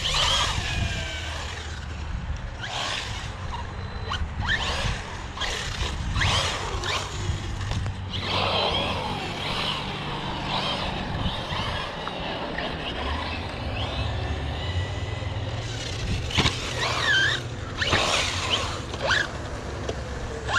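Electric RC car driving and jumping on concrete: the motor whines up and down with the throttle, the tyres scrub and skid, and there are sharp knocks of landings and impacts.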